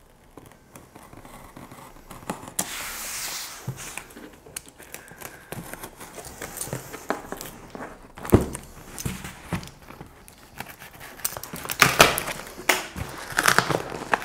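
A cardboard parcel being opened: tape tearing and cardboard crackling and rustling, with irregular sharp knocks that grow louder and more frequent in the second half.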